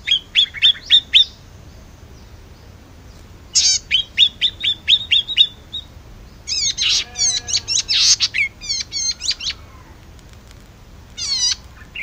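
Caged red-headed cisticola (kecici padi kepala merah) singing. A quick run of high, evenly repeated chirps opens, another longer run comes about three and a half seconds in, a fuller warbled phrase follows around seven to nine seconds, and a short phrase comes near the end.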